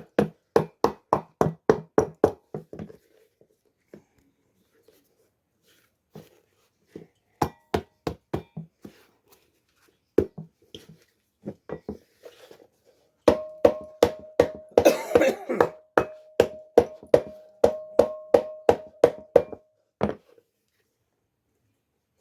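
Rapid hammer taps on a shoe, about four a second, in several runs with pauses between them. In the last and loudest run a metallic ring sounds under the strikes, and it stops just after the strikes end.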